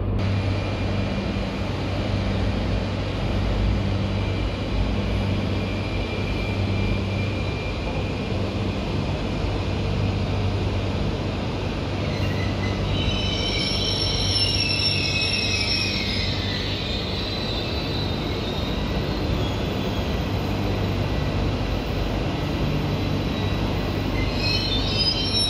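Electric multiple-unit passenger train pulling slowly into a station platform over a steady low hum and rumble. About halfway through, its wheels squeal in high tones that slide downward for several seconds, and the squeal comes back briefly near the end as it stops.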